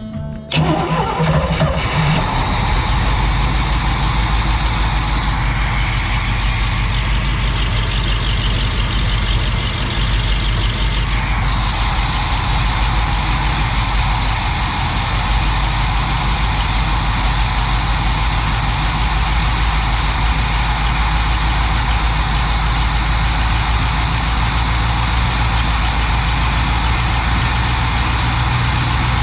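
Inboard marine gasoline engine, fresh from a new Rochester carburetor install, comes in loud about half a second in and then runs steadily. The owner says it runs rough and that a noise comes from the exhaust.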